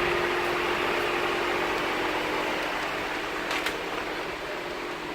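Steady mechanical whir with an even hiss and a constant hum, easing off slightly over the seconds; a brief click about three and a half seconds in.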